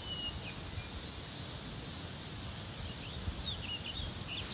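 Outdoor ambience: a steady low background noise with a few short, high bird chirps, most of them in a cluster about three seconds in.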